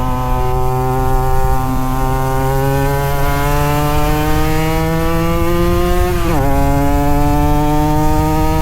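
Two-stroke motorcycle engine accelerating, its pitch climbing steadily through a gear, dropping sharply at an upshift about six seconds in, then climbing again.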